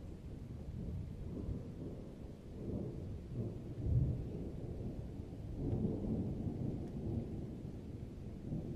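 Mountain outdoor ambience: a deep, low rumble that swells and fades several times, loudest about four seconds in.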